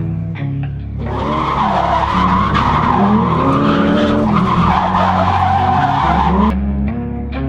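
Drift car sliding: tyres squealing and the engine revving up and down, starting about a second in and cutting off abruptly near the end, over background music with a steady bass.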